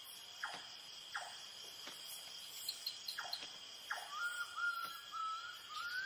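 Night rainforest ambience: a steady high drone of crickets and other insects, with a few short falling calls and, from about four seconds in, a thin wavering call.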